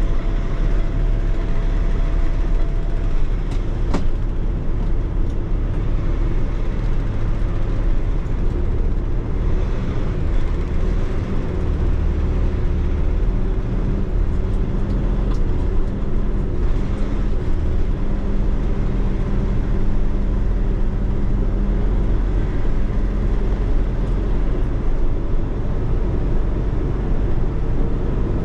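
A truck's diesel engine runs steadily, heard from inside the cab while the truck is driven at low speed. It makes a continuous low drone with a faint tone above it that wavers slightly. There is a single small click about four seconds in.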